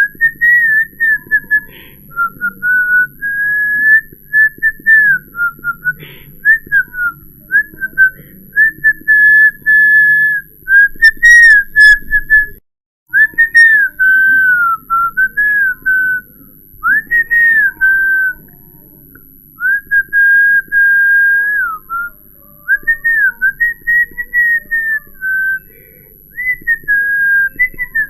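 A person whistling a meandering tune: one pure tone that glides up and down between notes in short phrases with small breaks. The sound cuts out briefly about halfway through.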